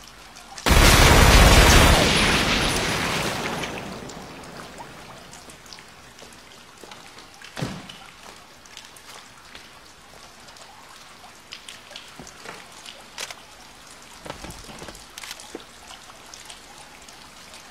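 A loud burst of gunfire about a second in, dense and crackling, echoing away over about three seconds. A single sharp knock follows later, then scattered faint taps.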